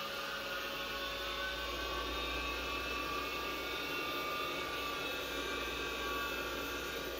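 1984 IBM PC-XT just powered on with its cover off: the power-supply fan and the 10 MB hard drive running, a steady whine with a low hum that comes in right at the start.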